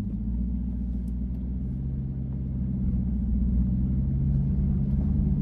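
Chevrolet Corvette C8's V8 engine running steadily while the car is driven, a low rumble that grows slightly louder.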